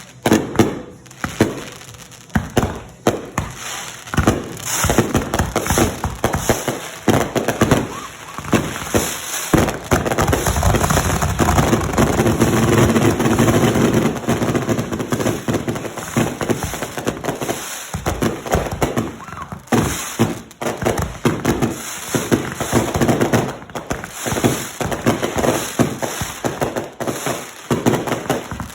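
Fireworks going off in rapid, irregular pops and crackles, thickening into a continuous crackle for several seconds partway through before thinning back to scattered bangs.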